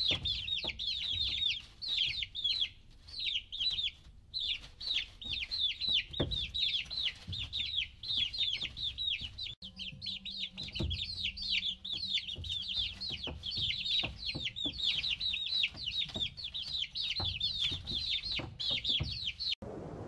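A brood of domestic chicks peeping without pause, a dense run of short, high cheeps that each fall in pitch. The peeping stops abruptly near the end, giving way to a low steady rushing.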